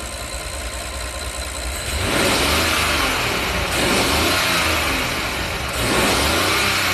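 Rolls-Royce Phantom's smooth-running 6.75-litre twin-turbo V12 idling, then revved about two seconds in. Its pitch rises and falls, with a second surge of revs near the end.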